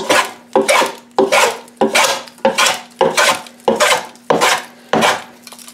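Stanley No. 5 jack plane with a cambered iron, set up as a fore plane, taking quick heavy strokes across the grain of a board. There are nine short cuts, about one every two-thirds of a second, each starting sharply and fading as a thick chip comes away.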